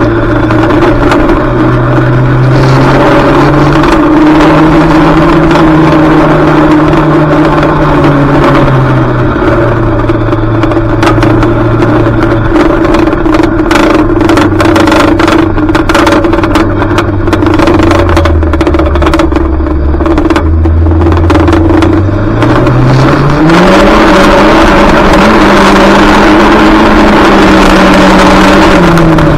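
Junior banger's engine heard from inside the car while racing, revving up and down. The note drops low around eighteen seconds in, climbs steeply about twenty-three seconds in and holds high, then eases near the end. Many short knocks and rattles come through over the engine.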